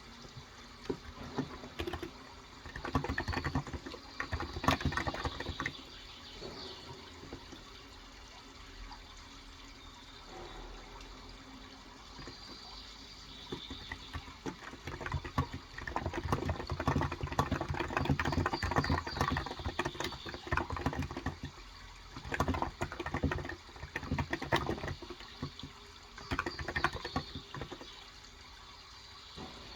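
Bursts of typing on a Cox Endeavour tenkeyless keyboard with electro-capacitive 35 g switches, over a steady sound of running water. The typing comes in runs of a few seconds, the longest from about twelve to twenty-one seconds in.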